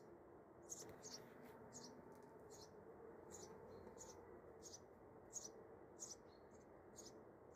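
Near silence with faint, high chirps repeating a little under twice a second.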